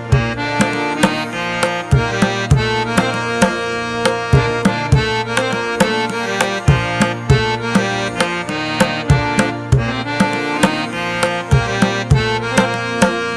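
Background music: a pitched instrumental melody over a regular drum beat.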